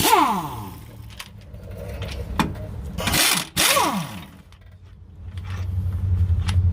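Power wrench on a Prevost front-brake bolt: two short bursts, each ending in a falling whine as the tool spins down, then a steadier run near the end as the bolt is loosened and backs out.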